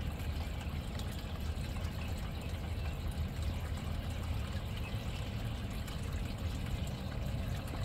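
Steady trickling, splashing water over a low, even rumble.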